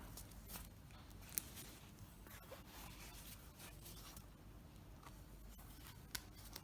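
Faint rubbing and handling of neoprene cable sleeves as their zippers are worked to join them, with a couple of sharp clicks.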